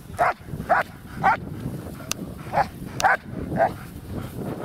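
German shepherd barking in play, short sharp barks about two a second: three barks, a brief pause, then three more.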